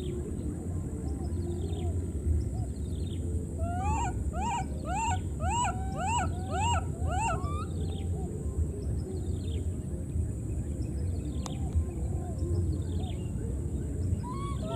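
Baby monkeys crying: a run of about eight high, arching squeals, roughly two a second, comes about four seconds in and stops after about three and a half seconds. Fainter short, thin descending cries come and go through the rest of it, over a steady low rumble.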